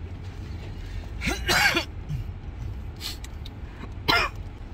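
A person coughing twice, once about a second and a half in and once near the end, while still ill with a cough and cold. A steady low hum runs underneath.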